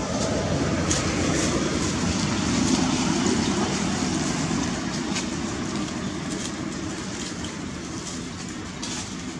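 Low rumble of a passing motor vehicle that swells about two to three seconds in and then fades, with faint crackles of dry leaves.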